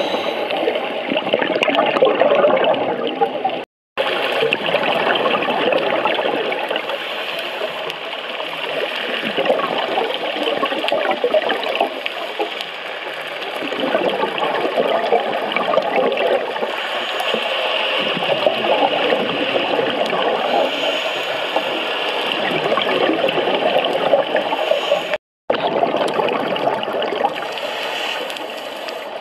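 Underwater sound picked up by the camera in its housing: a steady hiss of fine crackling and bubbling. It cuts out briefly twice, about four seconds in and again near the end.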